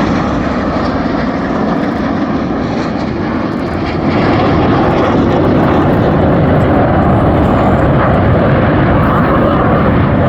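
Jet noise from a formation of BAE Hawk T1 trainers flying overhead: a loud, steady rushing roar that grows louder about four seconds in.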